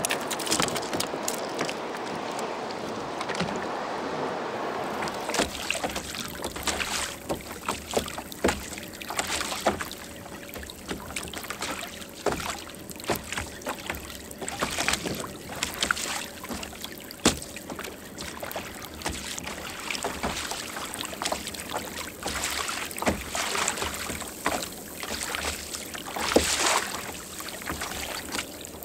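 Steady rushing noise for about the first five seconds, then sea water lapping and splashing against a Hobie Outfitter kayak's hull, with many sharp, irregular slaps and knocks.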